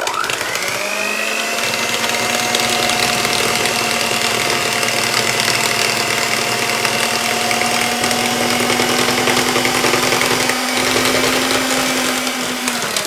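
Electric hand mixer running with its beaters in egg-yolk and sugar batter: the motor whines up to speed at the start, holds a steady whine, and winds down and stops near the end.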